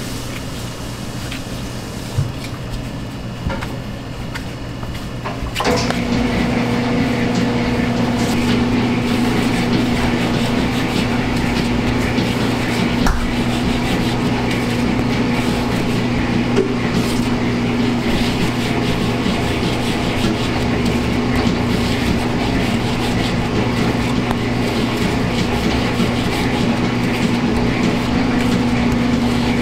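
Steady electric machine hum: it switches on about six seconds in and holds one even pitch over a lower, constant drone.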